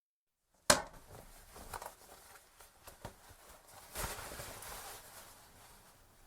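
Handling noises at a toilet: a sharp clunk, then a few light knocks and rustling, and a short noisy rush about three seconds later that fades away.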